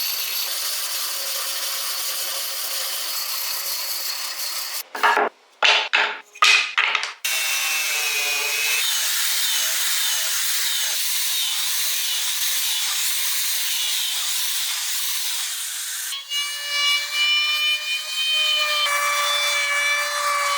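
Tools cutting and abrading wood with a steady high-pitched rasping noise, broken by a few loud separate strokes about five to seven seconds in. Near the end a whine of several steady tones sits on top of the rasping.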